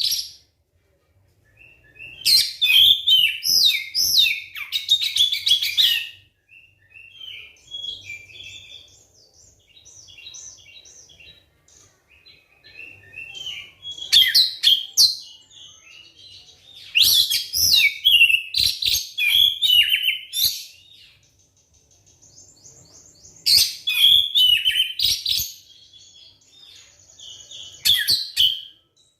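Oriental magpie-robin (kacer) singing: several loud bursts of quick, varied whistled phrases, with softer, quieter phrases in between.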